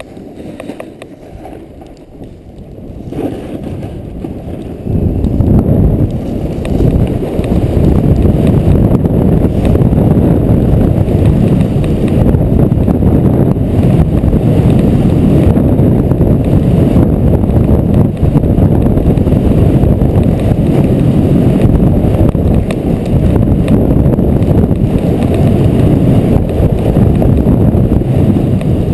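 Wind rumbling over the microphone of a camera carried by a snowboarder riding down a groomed slope, mixed with the board sliding over the snow. It gets much louder about five seconds in and then stays loud and steady.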